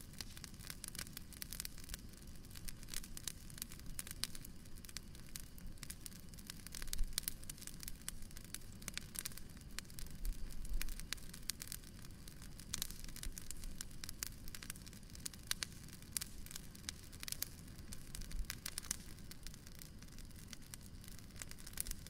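Bonfire crackling: a dense, irregular run of small pops and snaps, with a few louder pops about seven and eleven seconds in.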